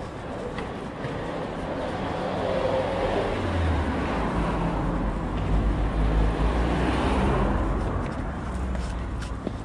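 A motor vehicle passing close by in street traffic, its engine and road noise growing louder to a peak and then fading away.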